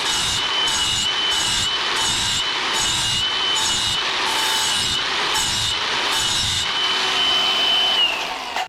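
Angle grinder with an 80-grit flap disc grinding a steel lawnmower blade's edge flat to take out a nick: a steady high motor whine over rough grinding noise. Near the end the whine falls away as the grinder is switched off.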